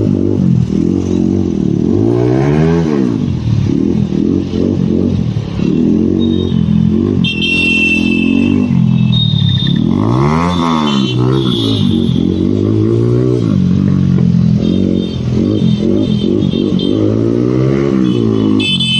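Single-cylinder TVS Apache RTR 160 motorcycle with an aftermarket exhaust being ridden, its engine revving up and dropping back again and again, with two sharp rev rises and falls, a few seconds in and about halfway through.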